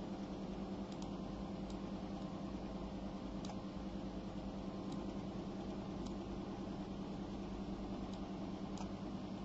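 Steady low electrical hum of room and equipment noise, with a few faint clicks now and then, like mouse or keyboard clicks while settings are being adjusted.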